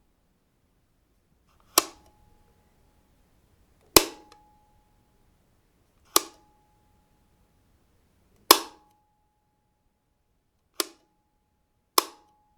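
Wall light switch flicked on and off: six sharp clicks about two seconds apart, the last two a little closer together, each followed by a faint brief ring.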